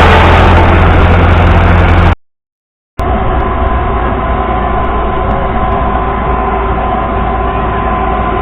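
A machine engine running steadily with a strong low hum. About two seconds in, the sound cuts out for under a second, then resumes quieter as a steady machine drone with several held tones.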